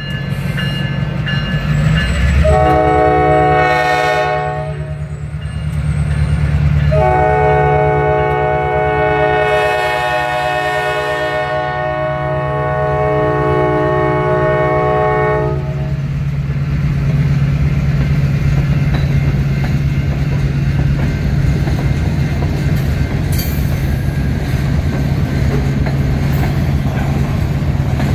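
Diesel locomotive's multi-note air horn sounding for a grade crossing: a blast of about two seconds, then a long blast of about eight seconds, over the steady rumble of the diesel engine. After the horn stops, the freight cars rolling past on the rails carry on alone.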